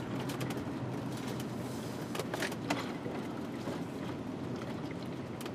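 Cab noise of a 2001 Chevy-chassis Fleetwood Tioga Arrow motorhome with its 7.4-litre 454 V8, rolling slowly: a steady engine hum and road noise, with a few light clicks a little past two seconds in.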